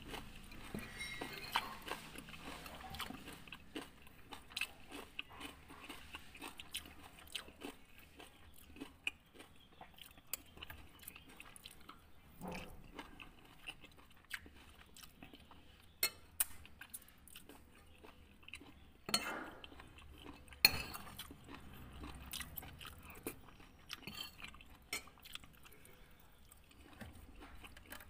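Close-up chewing of satay meat, with wet mouth smacks and sharp clicks throughout and a few louder clicks partway through.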